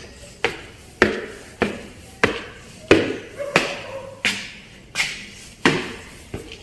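Footsteps climbing stairs at a steady walking pace, about one and a half steps a second, each step a sharp knock with a short ringing tail.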